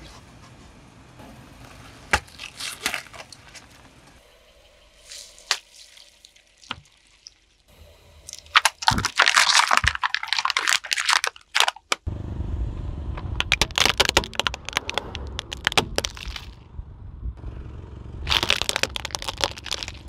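Car tyre rolling over and crushing brittle objects: scattered sharp cracks, then a dense run of crackling and crunching midway. A steady low rumble from the car comes in suddenly after that, with more crackling over it and another crackling burst near the end.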